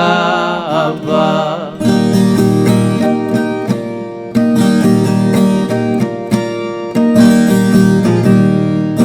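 Caipira folk song: a man's voice holds the last sung word for about two seconds, then a viola caipira plays an instrumental passage of plucked chords.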